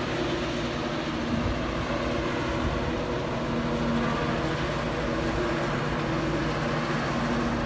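A motor vehicle's engine running steadily, a low droning hum over a constant rushing noise.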